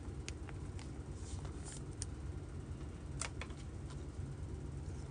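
Trading cards and pack wrappers being handled, with soft rustling and a few sharp light clicks, the last ones bunched together past the middle, over a steady low hum.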